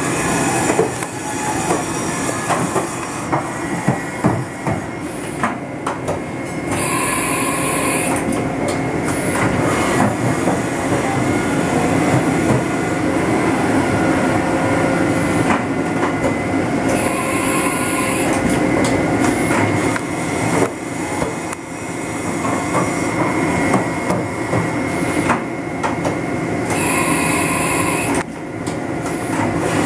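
Machine-shop background noise: a steady mechanical running sound with scattered clicks, broken three times, about ten seconds apart, by a short hiss lasting about a second.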